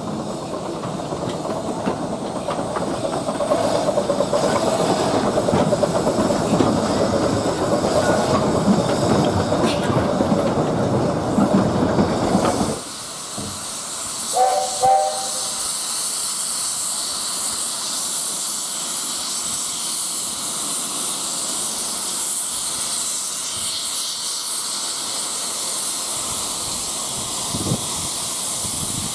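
A 15-inch gauge miniature steam locomotive running along the station track, a loud steady rumble of wheels and engine. About 13 s in it cuts to a steady hiss of escaping steam, with two short whistle toots soon after.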